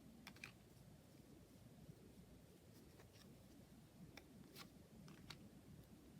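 Faint handling of oracle-deck cards: a few soft clicks and taps as cards are flipped and laid down, two just after the start and a cluster near the end, over a low room hum.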